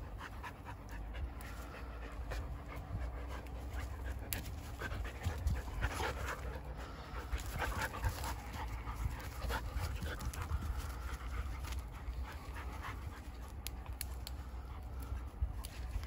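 A dog panting after running and playing, with a steady low rumble underneath.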